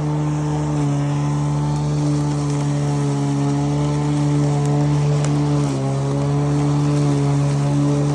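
Sun Joe MJ401C-XR cordless electric lawn mower running steadily while cutting grass, its motor and blade giving an even whirring hum. The pitch dips slightly about a second in and again near six seconds as the blade takes on thicker grass.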